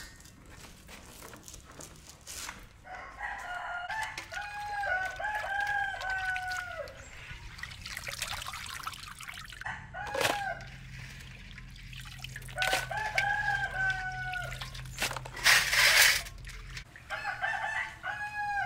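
Roosters crowing, about three drawn-out crows each ending in a long falling note, with a short call in between. About three-quarters of the way through, a brief loud burst of noise stands out above them.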